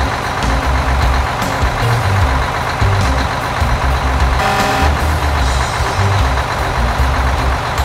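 Cartoon farm-machinery engine sound effect: a steady, low engine rumble with background music over it. A short higher tone sounds about four and a half seconds in.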